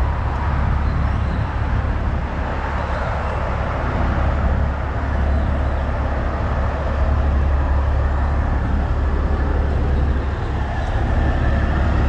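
Kenworth T800 semi truck's Caterpillar C15 diesel engine idling steadily.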